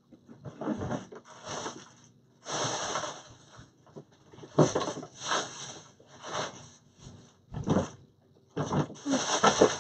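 Rummaging through craft supplies: a run of irregular rustles and light knocks in short bursts with brief pauses, as decorations are grabbed and handled.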